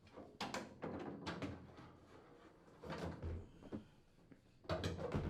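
Washer tub assembly knocking and scraping against the cabinet as it is worked out, in three short bouts of clunks and rubbing.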